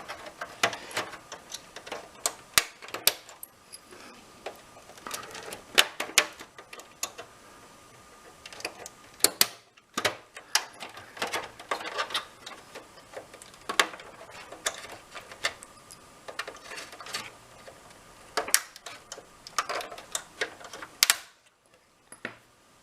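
Plastic latch tabs of an Xbox 360's outer casing clicking and snapping as they are pushed in and released one after another with a pry tool, with scraping and handling of the plastic shell between the irregular clicks; a few snaps are much louder, about six seconds in, near the middle, and shortly before the end.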